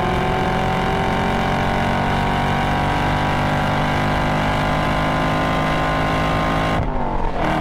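Stock LT1 6.2-litre V8 of a Camaro SS 1LE pulling hard under acceleration, its pitch climbing slowly, heard from inside the cabin. About seven seconds in the revs fall sharply with an upshift and then hold steady at a lower pitch.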